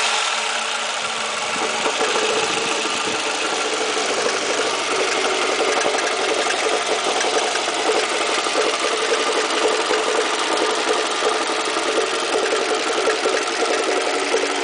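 Toyota 2AZ-FE 2.4-litre four-cylinder engine idling steadily with a fast, even knocking in time with the engine, a knock that the owner places near the starter.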